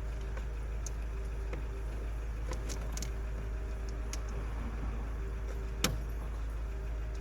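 Scattered light clicks and taps of hand work on plastic clips and a wiring harness, with one sharper click about six seconds in, over a steady low hum.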